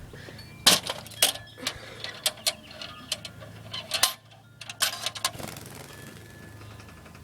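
Metal squirrel live trap rattling and clanking as it is handled and its door opened to release a trapped bird: a string of sharp clicks and clanks, thickest in the first five seconds, sparse after that.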